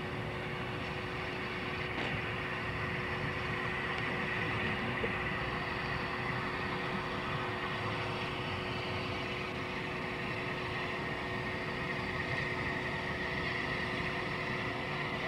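Railway locomotives running at a standstill or slow walking pace: a steady low rumble with a constant hum, and a hiss that grows stronger in the second half.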